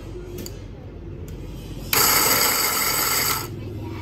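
Small electric burr coffee grinder running on setting 5 of 8, with a loud burst of grinding noise for about a second and a half in the middle over a steady motor hum.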